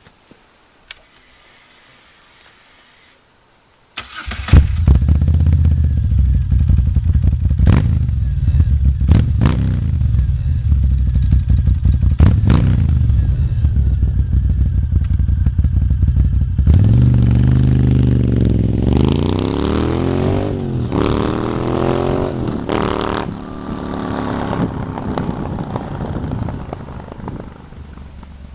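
2013 Moto Guzzi V7 Racer's air-cooled V-twin, its exhaust dB killer removed, starting up about four seconds in and running with a few quick revs. Near the halfway point it pulls away, accelerating up through the gears and fading into the distance.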